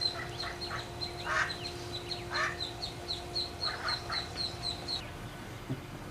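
Ducklings peeping in a quick regular string, about four high peeps a second, mixed with a few lower rasping quacks from the mother duck. The peeping stops about five seconds in.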